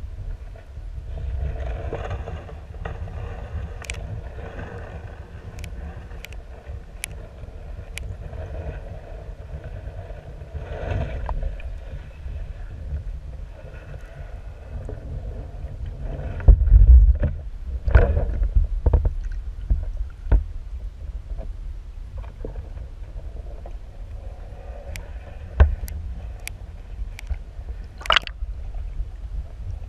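Muffled, low water rumble and gurgling picked up by a submerged camera, with scattered sharp clicks. There are a few heavy thumps a little past the middle and again near the end.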